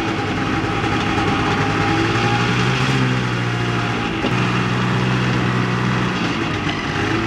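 Snowmobile engine running steadily while riding, heard from the driver's seat, its pitch stepping slightly up and down a few times, over a steady rushing noise.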